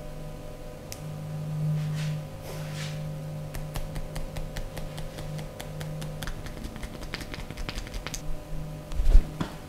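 A fast run of sharp taps, several a second, over a steady low hum, followed near the end by one heavy thump.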